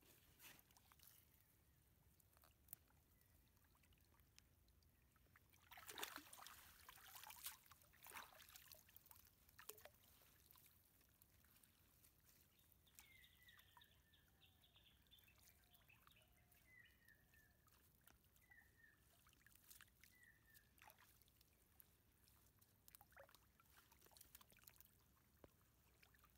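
Faint splashing and dripping of water as a gill net is worked by hand in shallow water, loudest about six seconds in. Through the middle, a bird calls a run of short falling notes.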